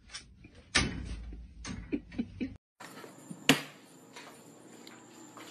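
A metal pet gate knocking and rattling several times as a large dog squeezes through its bars, then a single sharp knock about three and a half seconds in.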